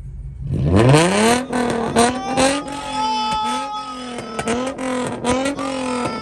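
Dodge muscle car V8 revving hard: the engine note climbs steeply for about half a second, then holds at high revs, with a run of short sharp cracks through it.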